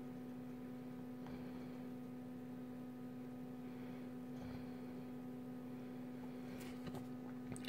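Faint steady electrical hum on one low pitch, with a few faint ticks near the end; the soldering itself is not heard.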